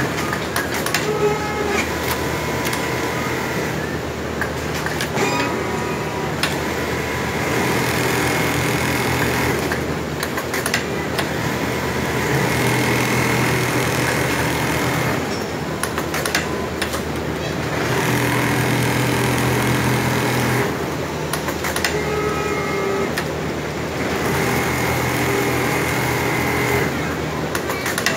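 Large-format programmable template sewing machine stitching, running in spells of a few seconds with short breaks between, over steady factory machine noise.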